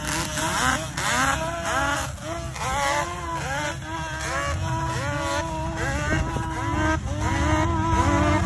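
Several sport ATV engines revving, pitch climbing in quick repeated rises about twice a second as the quads accelerate, with more than one engine heard at once.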